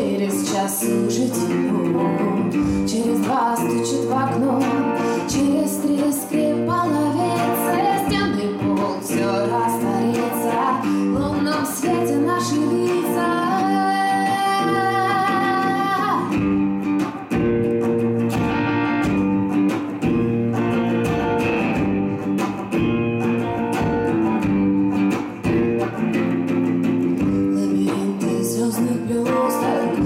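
Live band music: a woman singing over an electric guitar, with a steady low droning accompaniment and frame drum strikes. About halfway through, the voice holds one long note for a few seconds.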